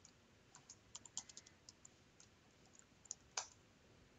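Faint computer keyboard keystrokes: about a dozen quick, irregular key taps as a password is typed, ending with one louder keystroke near the end as it is entered.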